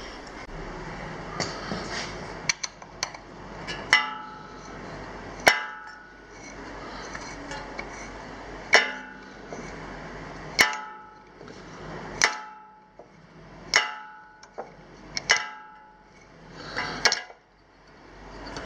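Sharp metal-on-metal strikes, each ringing briefly, repeated about a dozen times at uneven gaps of one to two seconds, like a hammer tapping metal.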